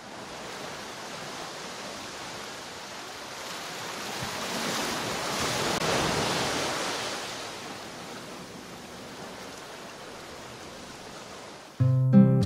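Sea surf washing onto a sandy beach: a steady wash of waves that swells to a peak about halfway through and then eases back. Near the end an acoustic guitar starts strumming.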